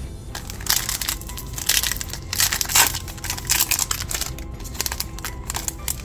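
Plastic trading card pack wrapper crinkling and crumpling in a series of irregular bursts as it is opened, over background music.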